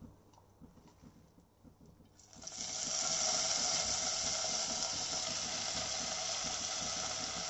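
Freshly washed mint leaves frying in hot oil in an aluminium pot: a steady sizzle starts suddenly about two seconds in and keeps on.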